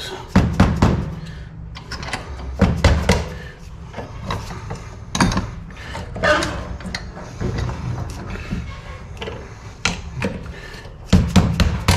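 Irregular metal clanks and knocks from a steel brake-line bracket and its retaining clip being worked free in a bench vise, with a few short mallet taps among them.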